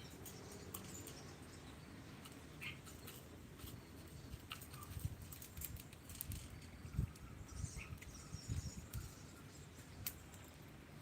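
A lovebird giving a few faint, short chirps among small taps and rustling.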